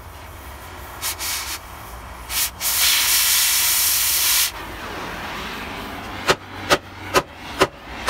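Oxy-acetylene cutting torch hissing, with a few short hisses and then a loud two-second blast of cutting oxygen that cuts through the steel truck frame and stops suddenly. Five sharp short bangs follow, about half a second apart, near the end.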